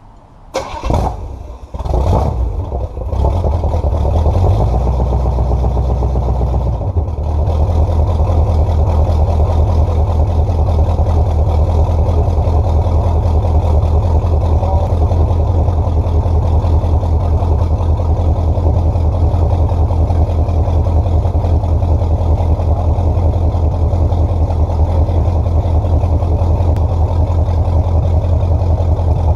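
Carbureted small-block Chevy V8 being cranked and firing up about two seconds in, running at a higher speed for a few seconds, then settling into a steady idle.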